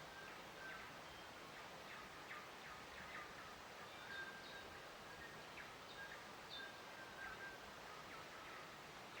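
Faint outdoor nature ambience: birds giving scattered short chirps and brief whistled notes over a steady soft hiss.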